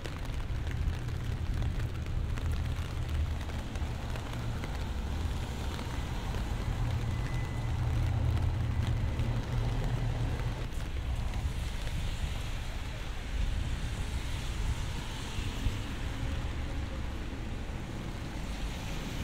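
Steady rain on a city street, with a constant low rumble underneath.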